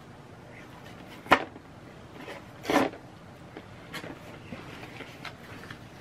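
Packaging being handled by hand: a sharp click about a second in, a short scrape a second or so later, then a few faint taps.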